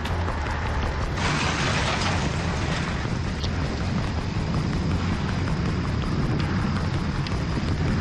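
Storm wind buffeting the microphone: a steady low rumble under a rushing hiss that grows stronger about a second in.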